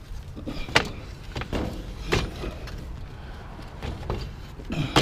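Scrap metal being handled and set down: a few separate knocks and clanks, one near the start, two more in the first half and a sharp one near the end, over a low rumble.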